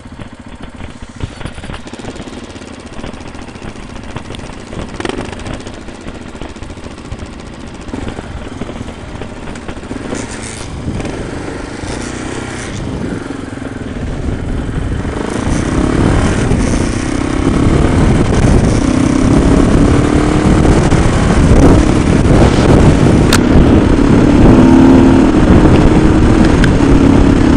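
Motorcycle engine running, then pulling away and riding down the road, growing louder from about halfway through as speed builds, with wind buffeting the helmet-mounted microphone.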